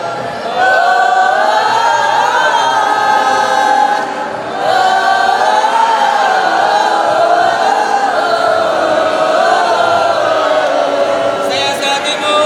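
A group of voices singing a melody together in phrases, with a short break about four seconds in. Near the end a few sharp taps or claps cut in over the singing.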